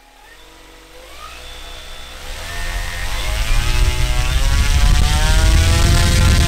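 A brushless outrunner motor driving a large propeller spins up under throttle: an electric whine rises in pitch over about four seconds, with a growing rush of propeller air, then holds loud and steady at full power. The motor is producing about 5 kg of thrust.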